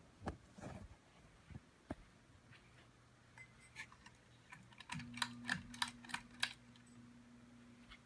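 A ceiling fan running with a faint, steady low hum; its bearings are greased and mostly silent. A few sharp clicks come in the first two seconds, then a quick run of clicks and taps about three to six and a half seconds in, and a second, slightly higher hum joins about five seconds in.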